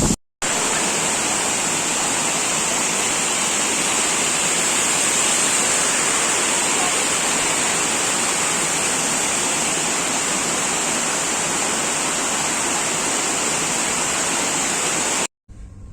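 Waterfall crashing down, a loud steady rush of falling water. It cuts in about half a second in and cuts off shortly before the end.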